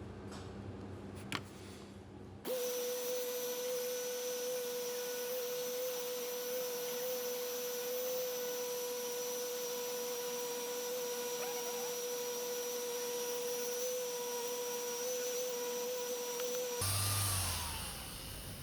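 Handheld electric power tool switched on, running with a steady motor whine over a hiss, then switched off about two seconds before the end and winding down with a falling whine. A single click comes just before it starts.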